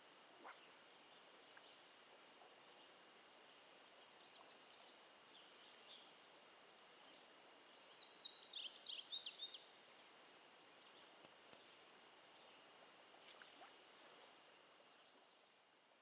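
Faint outdoor ambience: a steady, high insect drone throughout. About eight seconds in comes a short burst of rapid bird chirps lasting under two seconds, the loudest sound.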